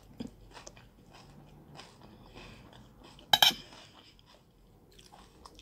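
Metal spoon scraping and clinking against a plate of rice and salad as food is scooped up, with a louder clatter of the spoon on the plate about three seconds in.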